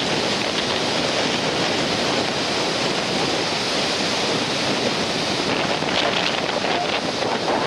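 Storm-rough sea: surf breaking in a steady rush, with wind buffeting the microphone.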